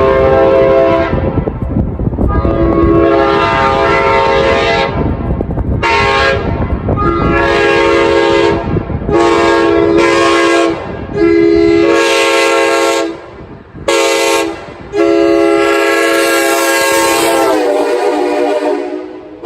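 1980s tagless Nathan K5LA five-chime train horn blown in a series of about eight blasts of varying length, each a chord of several steady tones. The last and longest blast drops slightly in pitch near the end.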